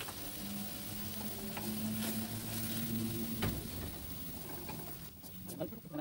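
Sliced vegetables and meat sizzling in a wok with a little water while a wooden spatula stirs them, with scattered taps and scrapes of the spatula on the pan. A low steady hum runs underneath for about three seconds in the middle.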